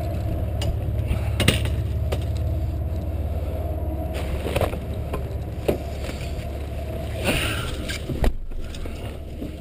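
Mazda pickup truck's engine idling steadily, with a few knocks as someone walks to it, then a door slamming shut about eight seconds in; after the slam the idle sounds muffled, as from inside the cab.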